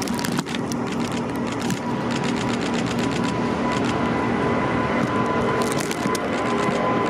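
Boeing 787-9 jet engines at takeoff thrust as the airliner lifts off and climbs: a steady rushing noise with a steady whine and rapid crackling.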